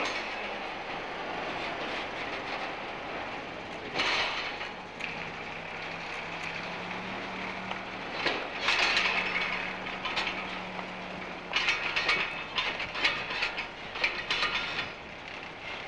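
Metal clanking and ratchet-like rattling as a railway freight wagon is loaded and secured on a Culemeyer road trailer. It comes in several clattering bursts, the busiest toward the end, over a steady mechanical noise.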